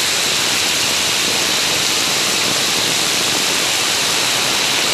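Loud steady rush of floodwater pouring out of an overflowing roadside storm drain and running down the road, with heavy rain falling.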